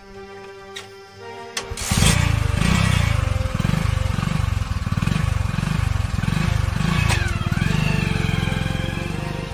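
An engine starts about two seconds in and runs loudly, its low sound rising and falling about twice a second, over background music.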